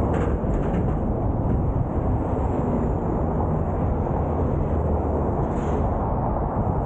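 Wind buffeting the camera's microphone as the bicycle rides along, a steady low rumble, with traffic noise from the highway alongside.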